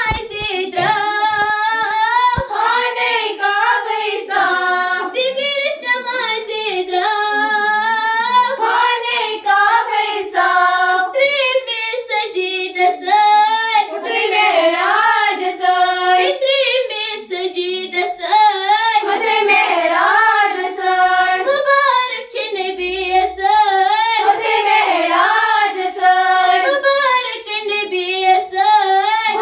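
A group of girls singing a song together, in one continuous melodic line that carries on without a break.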